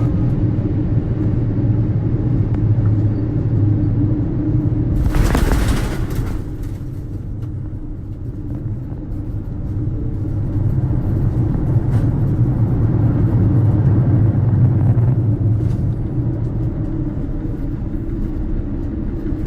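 Airbus A350-1000 airliner coming in to land: a steady low rumble, with a short loud rush of noise about five seconds in.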